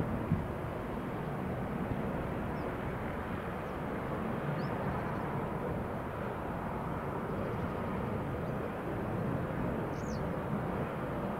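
Airbus A321 jet engines heard as a steady, unbroken rumble, with a few faint high chirps over it.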